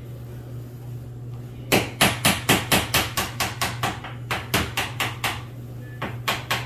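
Quick sharp metal taps, about four a second, on an old screwdriver held under a door hinge pin, driving the pin up out of the hinge. The taps start about two seconds in, pause briefly, and start again near the end.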